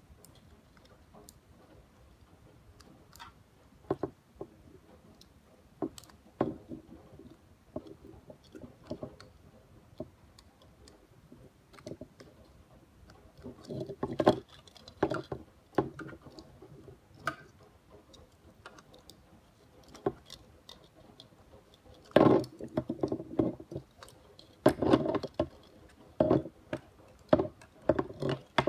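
Hard plastic parts of a 3D-printed, fully articulated action figure being handled and posed: irregular clicks, knocks and creaks as its joints are moved. The sounds come in quick clusters, busiest about halfway through and again in the last third.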